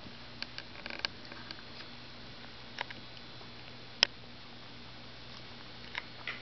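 Scattered light clicks and taps as pets move about and play, with a sharp, louder click about four seconds in, over a faint steady hum.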